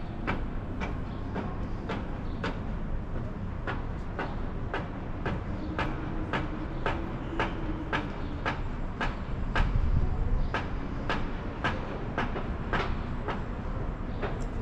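Footsteps walking at a steady pace, about two steps a second, over a low background rumble.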